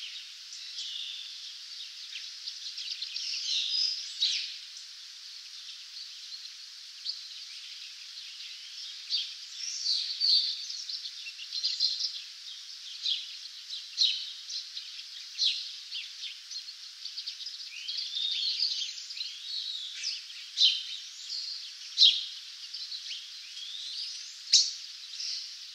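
Birds chirping and singing: many short chirps and rising and falling whistles over a steady hiss, with no low sound at all, like a thinned-out recording.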